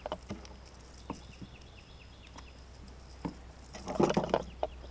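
Scattered faint clicks and taps from handling a freshly caught peacock bass held on a lip gripper, with a brief rustling burst near the end. A run of faint short falling chirps sounds in the background early on.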